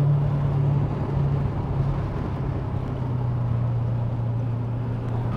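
Honda CB500X parallel-twin engine running at a steady cruise, its low hum under wind and road noise.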